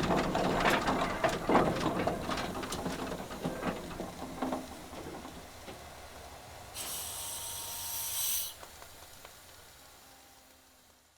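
Tractor clattering and knocking, dying away over several seconds, with a sharp burst of hiss lasting about a second and a half partway through, then fading to near silence at the end.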